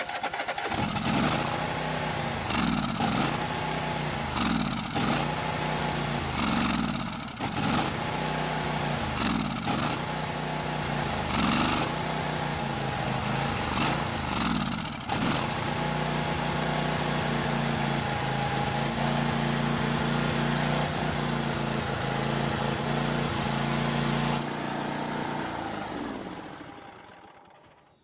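Troy-Bilt zero-turn mower engine running on fuel squirted into the carburetor throat, burning off water-contaminated fuel left in the carb bowl. For roughly the first half the revs surge up and down over and over; then it runs steadily, and it dies away near the end.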